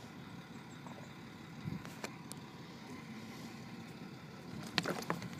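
Flatbed tow truck's engine idling with a steady low rumble, and a few sharp clicks near the end.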